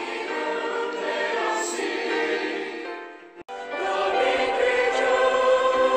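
Mixed church choir singing held chords in harmony. About three and a half seconds in the singing cuts off abruptly and a new, fuller choral passage begins.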